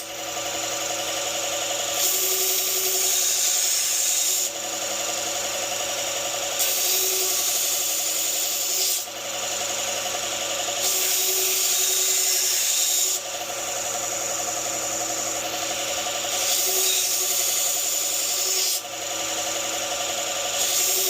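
Knife blade being ground on a running powered sharpening grinder: a steady motor hum under a grinding hiss that swells and eases every two seconds or so as the blade is passed across, taking down edge chips and raising a burr.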